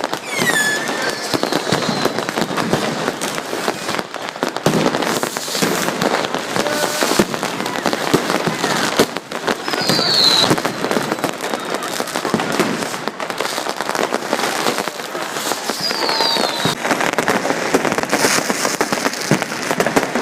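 Fireworks and firecrackers going off thick and fast in a continuous crackle of pops and bangs. A few short falling whistles from rockets come near the start, about halfway through, and again a few seconds later.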